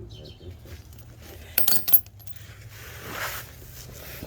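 Loose bolts and nuts clinking together as they are picked up by hand, with a quick cluster of sharp metallic clicks about a second and a half in.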